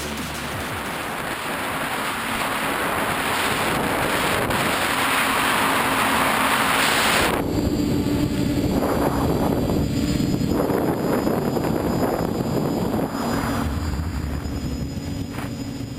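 A small quadcopter's brushless motors and propellers, heard through the onboard camera's microphone, humming steadily while wind buffets the mic in gusts. Over the first seven seconds a broad rush of wind swells louder and then cuts off abruptly.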